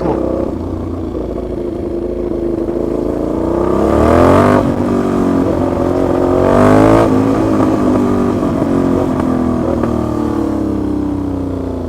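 Aprilia Shiver 750 V-twin running very loud through a muffler-deleted exhaust, accelerating hard: the note climbs to a sudden drop about four seconds in, climbs again to another drop near seven seconds, then slowly winds down. The owner puts the racket down to play in the joint between the silencer and the catalytic converter.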